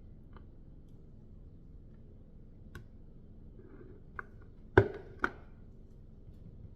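A few light clicks, then two sharp knocks about half a second apart, the first the loudest: hard utensils or containers being handled and knocked together on a work surface.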